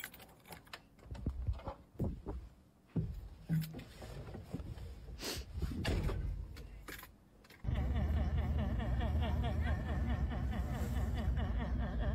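Clicks and knocks from a Unimog truck's door and cab as it is unlocked, opened and climbed into. About seven and a half seconds in, a loud, steady, deep rumble with a warbling tone above it starts abruptly.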